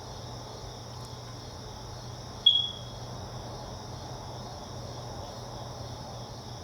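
Steady high-pitched background drone with a low hum underneath, and one brief sharp click with a short ringing tone about two and a half seconds in.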